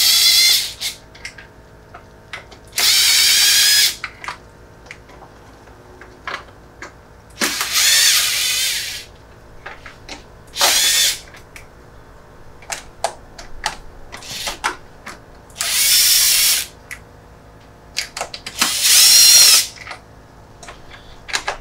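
Power drill/driver spinning out the small screws on the bottom of a motorcycle airbox, in about six short runs of about a second each with a whining, slightly wavering pitch. Small clicks and rattles of handling come between the runs.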